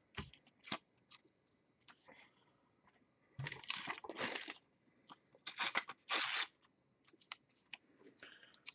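Paper rustling and crinkling as a small slip of paper is handled, in two longer bursts about halfway through, with scattered light taps and clicks around them.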